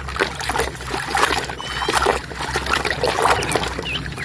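Water sloshing and splashing with irregular small splashes as a muddy toy vehicle is scrubbed by hand in a basin of water.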